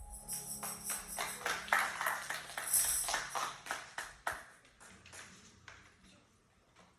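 A tambourine is struck and shaken in an irregular flurry, its metal jingles ringing bright, then tapering off and dying away over about five seconds. A held chord cuts off just as the jingling begins.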